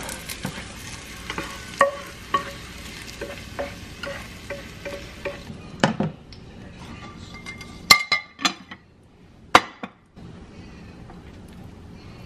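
Sautéed peppers and onions sizzling in a frying pan while a spatula scrapes and knocks them out into a ceramic bowl. The sizzle stops about five and a half seconds in, followed by a few sharp clinks, loudest near eight seconds and just before ten.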